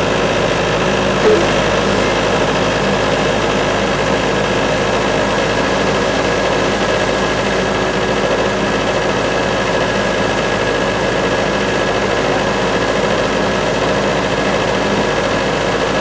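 Large bandsaw sawmill running steadily, its engine giving a constant, unchanging drone with several steady tones. A single small click about a second in.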